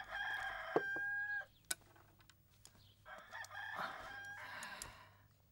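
A rooster crowing twice, each crow a held call of more than a second.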